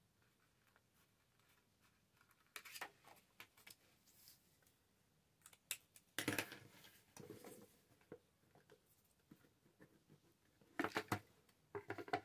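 Mostly quiet, with a few short, faint rustles and snips of paper being handled and cut with scissors. The louder ones come about six seconds in and again near the end.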